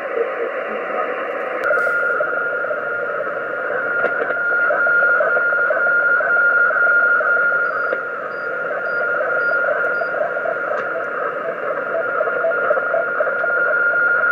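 Shortwave HF transceiver receiving on upper sideband: static hiss with no voice. A click comes about two seconds in, followed by a steady whistle that holds.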